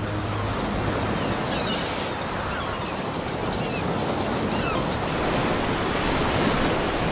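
Sea waves washing on a beach: a steady surf hiss, with a few faint, short, high bird chirps over it.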